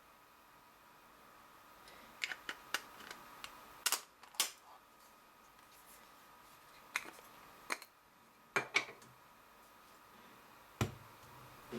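Scattered light clicks and taps of a camera and lens being handled, with a duller knock near the end.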